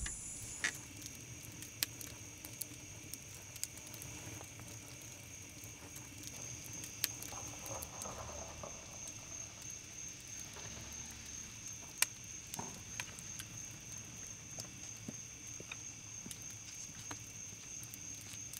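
Wood fire in an outdoor fire pit crackling, with scattered sharp pops, over a steady high-pitched drone of night insects.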